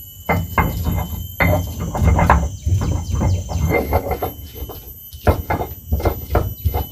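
Irregular wooden knocks and clatter, with dull thumps, as firewood is handled to build up a cooking fire.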